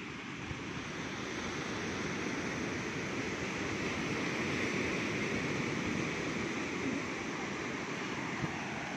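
Surf breaking and washing up a sandy beach: a steady rushing that swells a little midway and eases again.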